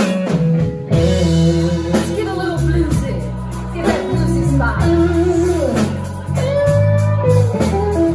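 Live band playing a slow blues: electric guitar lines over bass and keyboard, with steady held bass notes changing under the melody.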